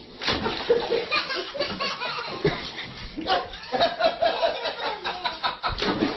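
People laughing, with some indistinct voices.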